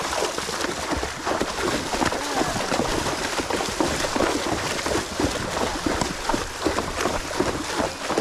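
Water sloshing and splashing steadily and irregularly, as horses wade and move through shallow water.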